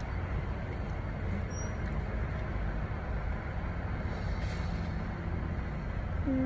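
Steady low rumble of a car heard from inside the cabin, with no distinct events.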